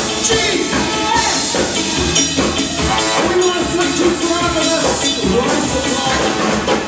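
A ska band playing live, saxophone and trombone over electric guitar and a steady rhythm section.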